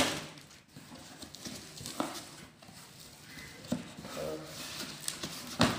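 Cardboard shipping box being opened by hand: packing tape peeled off and the flaps pulled open, with a few soft taps and a sharper knock near the end.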